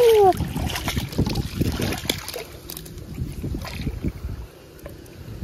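Water sloshing and splashing around a gill net being hauled in by hand while wading, with wind on the microphone; the sloshing eases off after about four seconds. A short falling tone sounds right at the start.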